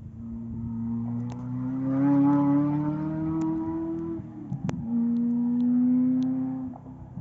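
Supercar engine accelerating hard: the revs rise through one gear for about four seconds, a sharp crack comes at the gearchange, then the engine pulls again in the next gear before dropping away near the end.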